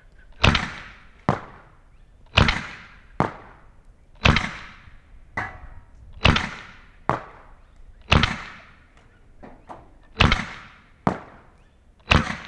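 We-Tech IREX Hi-Capa 2011 gas blowback gel blaster pistol fired in single shots, seven in all about two seconds apart. Each is a sharp crack with a short smeared tail and is followed under a second later by a thinner, fainter click.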